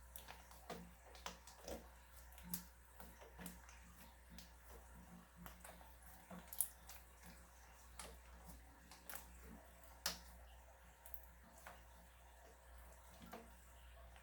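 Slime being squished and pressed by hand, making irregular small wet clicks and pops. The sharpest pops come about six and a half and ten seconds in.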